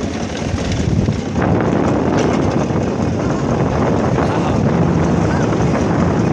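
Wind buffeting the microphone over the running noise of an open 'phatphatiya' jugaad cart, a makeshift motor vehicle, heard while riding on its wooden flatbed. The noise is steady and grows a little louder about a second and a half in.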